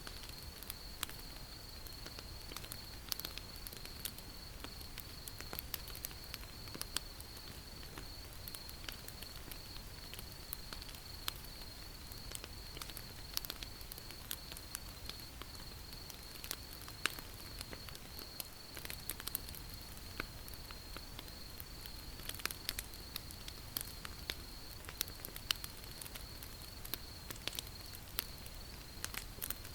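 Wood fire crackling, with irregular sharp pops scattered throughout, over a steady high trill of night insects.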